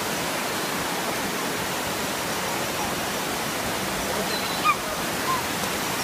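Steady rush of shallow water pouring over the stepped rock cascades of Dunn's River Falls. About two-thirds through, a brief high-pitched call rises above it, followed by a fainter one.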